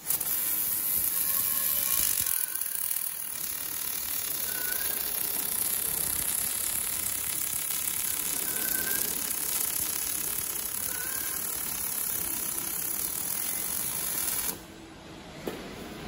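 Automatic MIG welding arc on a thin stainless steel water heater tank: a steady high hiss that cuts off near the end as the weld finishes.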